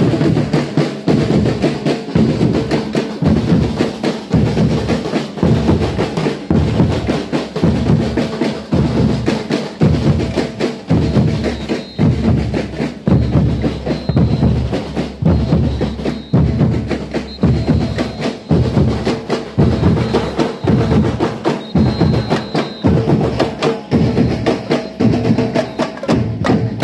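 A drum band of bass drums and snare drums playing a fast, driving rhythm, with rapid strikes that keep up all through.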